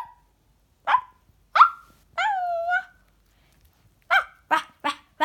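A Yorkshire terrier vocalizing in high-pitched yips: two short yips, then a longer whining call, then four quick sharp barks near the end.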